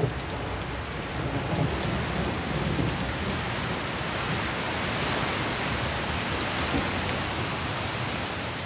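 Steady heavy rain falling, an even downpour with a low rumble underneath during the first few seconds.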